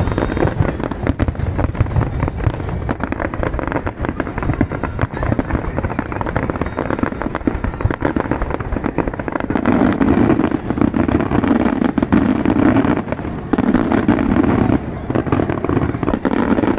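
Aerial fireworks display: a dense, continuous run of crackling and popping bursts, with a heavier low rumble from about ten seconds in.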